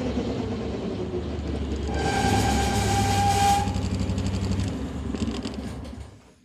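New car running with a steady low rumble; about two seconds in a steady high-pitched whine sounds for about a second and a half, the abnormal noise the new car is making. The sound fades out near the end.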